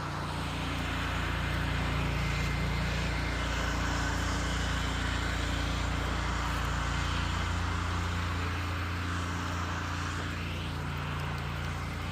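Pressure washer's gas engine running steadily, a constant low hum under a steady hiss.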